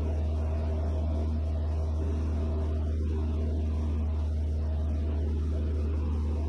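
Van's RV-6A light aircraft's piston engine and propeller droning steadily in cruise, heard from inside the cockpit as a low, even hum.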